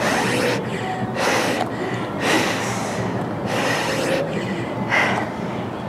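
A person breathing hard from exertion during a bodyweight workout, with about five heavy exhalations roughly a second apart.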